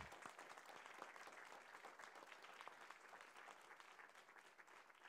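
Audience applauding at the end of a talk, a faint, dense patter of clapping that slowly dies away.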